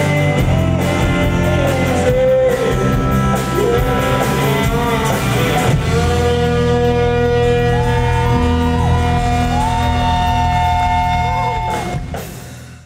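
Live rock band with acoustic and electric guitars, bass and drum kit, with a lead singer: singing over drum hits, then long held notes with slow pitch bends, fading out near the end.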